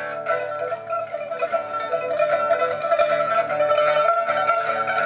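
Solo pipa (Chinese lute) played live: a fast, dense stream of plucked notes that runs on without a break.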